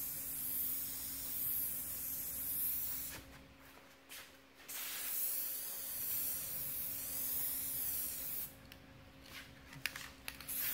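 Aerosol spray-paint can hissing in long sprays, stopping for a moment about three seconds in and again about eight and a half seconds in, then giving a few short bursts near the end. This is a second coat of paint going onto the back of a glass panel.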